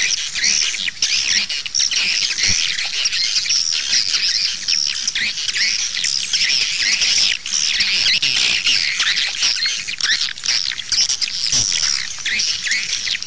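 Swiftlet lure call: a loud, dense chorus of high twittering chirps from many edible-nest swiftlets, the 'outside' calling sound played to draw swiftlets in to a bird house.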